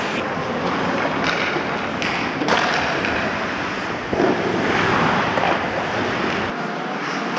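Ice hockey play: skate blades scraping and carving on the rink ice, a steady hiss broken by a few sharp knocks, about one, two and a half and four seconds in.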